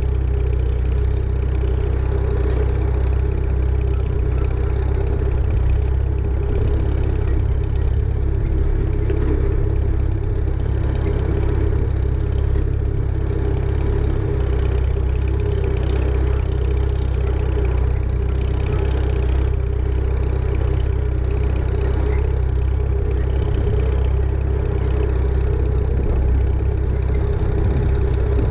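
A Farmall H tractor's four-cylinder engine running steadily as the tractor drives along, heard up close from its hood.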